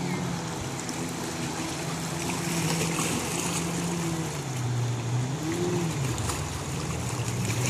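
Jet ski engine droning across the water, its pitch dropping about halfway through and then rising again, over a steady hiss of water and wind.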